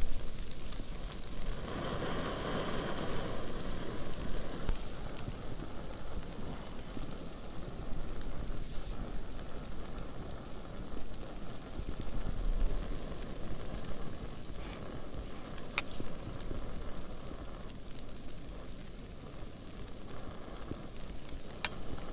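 Small camp stove burning steadily under a pot of snow being melted down into water, a steady hiss that swells for a couple of seconds near the start. A few brief clicks are heard later on.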